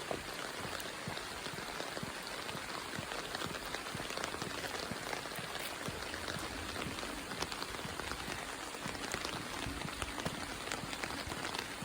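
Steady rain falling hard, pattering on an umbrella overhead as a dense stream of small drop ticks.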